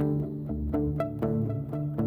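Instrumental film music: short plucked string notes, about four a second, over a held low bass note.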